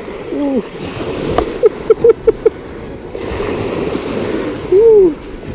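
Surf washing on the shore under a man's short wordless vocal sounds: a quick run of short notes in the middle and one long rise-and-fall call near the end.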